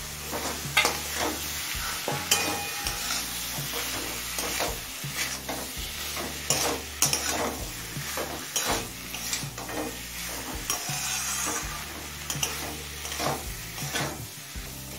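Metal spatula stirring and scraping fried potatoes, prawns and fig pieces through sizzling masala in a metal kadai, with frequent irregular scrapes and clacks against the pan.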